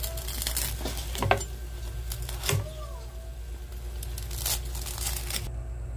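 Cleaver cutting through the crisp, crackling skin of deep-fried pork belly on a wooden board: several sharp crunches and knocks of the blade, the loudest about a second in.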